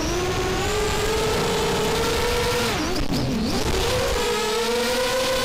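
FPV racing quadcopter's motors and propellers whining, heard from the onboard camera along with rushing air. The pitch dips sharply about three seconds in and climbs back as the throttle is eased off and opened again.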